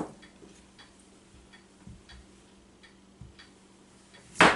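Kitchen knife chopping through the end of a yellow squash and striking the granite countertop: a sharp knock at the start and a louder one near the end. Faint, even ticking, about three a second, runs underneath.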